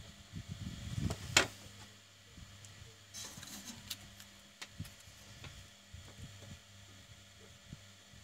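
Small clicks and taps of a soldering iron and tools being handled on a modem's circuit board, with one sharper click about a second and a half in and a brief soft hiss around three seconds in, over a low steady hum.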